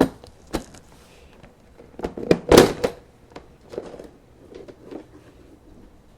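Plastic motorcycle fairing parts being handled: scattered clicks and light knocks, with a louder clatter about two and a half seconds in.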